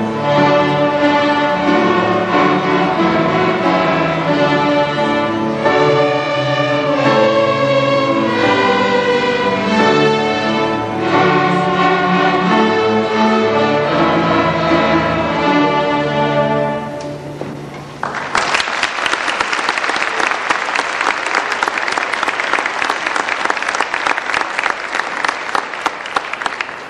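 Sixth-grade school string orchestra playing the end of a piece, closing on a held low chord about 17 seconds in. About a second later the audience breaks into applause, which runs to the end.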